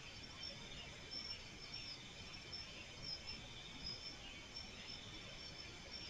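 Night insects, crickets among them, chirping faintly: short high chirps repeat irregularly over a steady insect hum, with a low rumbling background hiss.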